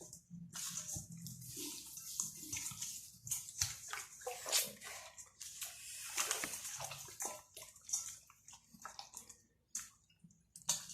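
Hands rubbing marinade and seasonings into a raw whole chicken: irregular wet rubbing and squishing, with a short pause near the end.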